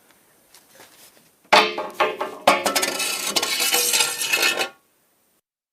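Foley recreation of a shovel thrown onto artificial turf: a metal shovel and an iron lid dropped onto grass, two clanging impacts about a second apart, with metallic ringing that dies away.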